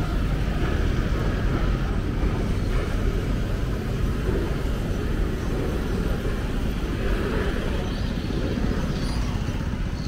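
Steady street traffic noise: vehicles running past with a continuous low rumble.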